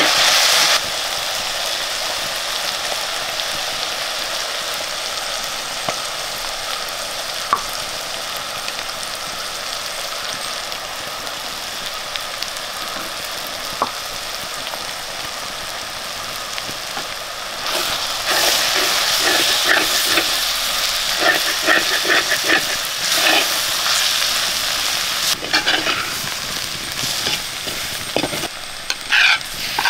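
Food sizzling in hot oil in a pan while it is stirred. About two-thirds of the way through, the stirring gets louder, with a quick run of scraping strokes.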